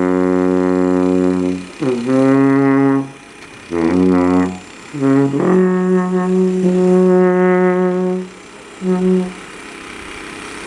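Alphorns playing a slow melody of long held notes, one after another with short breaths between. A last short note ends about nine seconds in.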